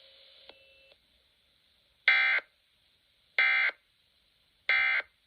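Emergency Alert System end-of-message signal: three identical short bursts of raspy digital data tones, each about a third of a second long and spaced about 1.3 seconds apart, marking the end of the alert broadcast.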